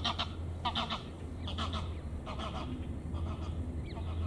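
A bird calling over and over: about five calls, each a quick run of three or four notes, over a steady low hum.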